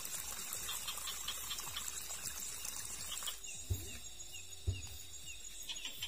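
Steady, high-pitched chorus of night insects, which thins out about halfway through, with two dull knocks a second apart soon after.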